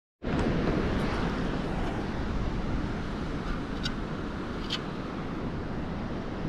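Steady wind noise rushing over the microphone, with a few faint light clicks.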